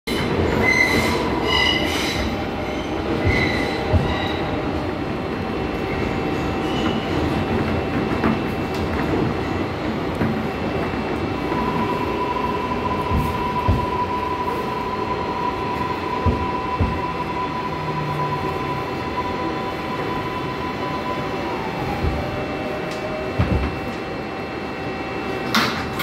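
R142A subway car running and slowing into a station, with wheels squealing and rumbling on the rails. A steady electric whine holds for about ten seconds, then drops in pitch as the train brakes. A brief rising sound comes near the end as the doors begin to slide open.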